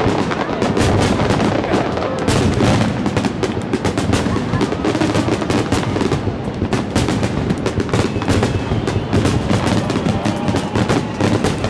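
Dense barrage of aerial firework shells bursting in rapid, overlapping bangs, with no pause.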